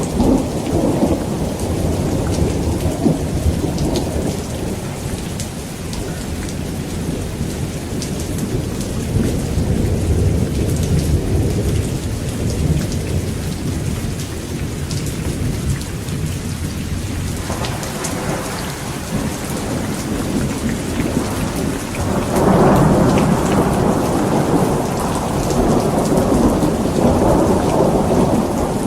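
Heavy rain falling steadily with thunder rumbling: a long, deep rumble through the middle, then a louder roll of thunder starting about three-quarters of the way in.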